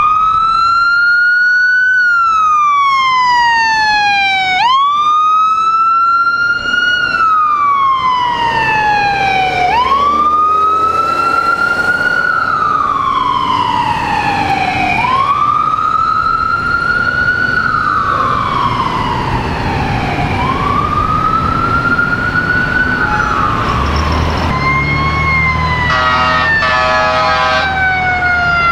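Ambulance siren on wail, rising and falling in slow cycles of about five seconds. Near the end a second siren's slowly falling tone joins, with a low engine rumble and a rapid stuttering horn-like sound.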